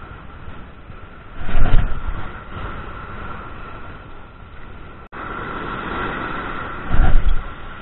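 Small surf breaking on a sandy beach, with wind buffeting the microphone. Two louder rushes come through, about a second and a half in and again near the end.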